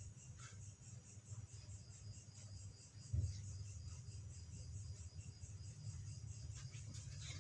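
Crickets chirping steadily in the background over a low hum, with one soft thump about three seconds in.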